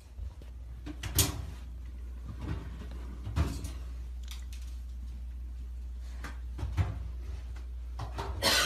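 A few short clunks and knocks from a front-loading laundry machine and laundry being handled, over a steady low hum.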